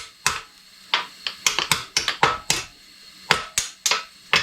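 Sharp metal knocks and clanks, a dozen or so at irregular intervals, some briefly ringing: a Honda TRX200SX engine being manoeuvred into an ATC200X frame, its cases bumping against the frame.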